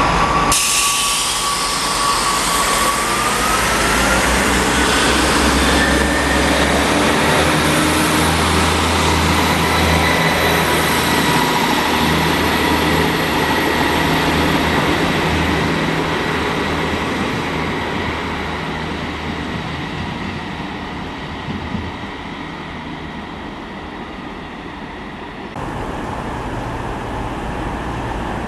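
Class 158 diesel multiple unit running under power, its diesel engines humming low with a whine that rises in pitch a few seconds in, then gradually fading as the unit moves off. Near the end it cuts suddenly to quieter station background noise.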